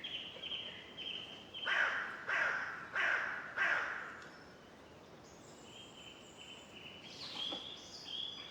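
Birds calling: thin high whistled notes, and a run of four loud harsh calls about two seconds in, each falling in pitch, followed by more high, thin calls.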